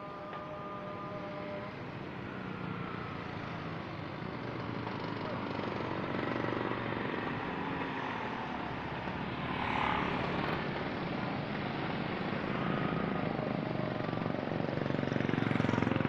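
Road traffic with motorbikes: a steady rush of passing vehicles that swells louder about ten seconds in and again near the end.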